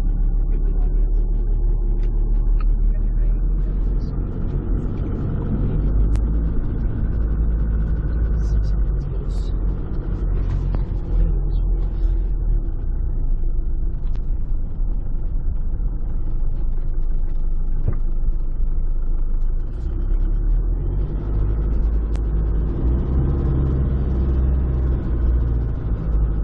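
A motor vehicle driving: a steady, loud low rumble of engine and road noise.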